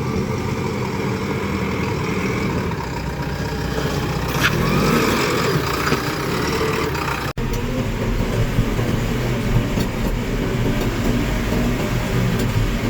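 Heavy diesel machinery running steadily, as a backhoe loader and tractors work at a loading site. The pitch rises briefly about four and a half seconds in, and the sound cuts out for an instant near the middle.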